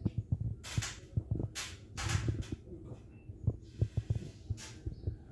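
Low, irregular thumps of handling noise on a phone's microphone, with short bursts of rustling, as a hand moves over a bed sheet toward a cat.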